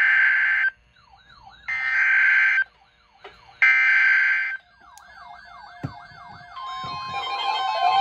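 A NOAA Weather Radio alert header played through a handheld radio's small speaker: three harsh, buzzing data-tone bursts about a second long, a second apart. Warbling, rising-and-falling siren-like alert tones follow, and near the end a steady single-pitch warning tone comes in, the start of a weather alert.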